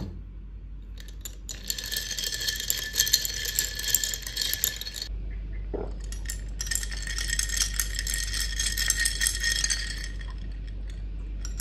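Ice cubes clinking and rattling against a glass jar of iced coffee as a straw stirs them, in two bouts of a few seconds each.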